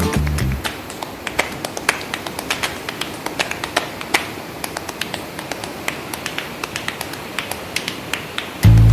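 Irregular sharp clicks and taps, several a second, over a soft hiss. Music stops just after the start and returns near the end.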